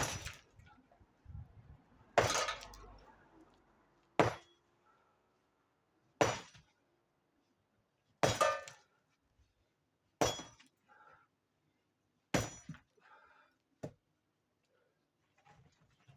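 Heavy hammer blows on the brick and stone masonry of an old bread oven: about eight strikes roughly two seconds apart, some followed by a brief clatter of breaking rubble.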